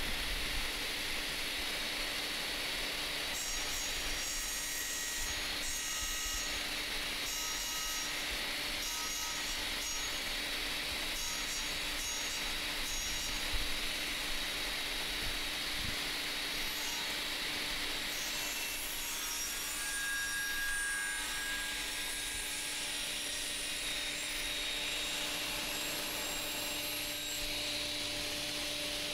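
Table saw running steadily with its circular blade spinning, giving an even hum, while clamped wooden door parts are fed toward the blade for a crosscut to length.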